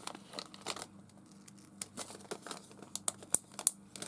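Small plastic packaging crinkling as it is handled, with scattered light clicks, the sharpest about three seconds in.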